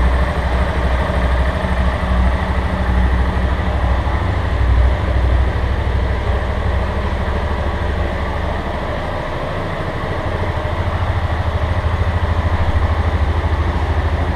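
Yamaha Lander single-cylinder four-stroke motorcycle engine idling, with a "tec-tec" ticking in the engine. The workshop foreman blames a worn cam timing chain bearing.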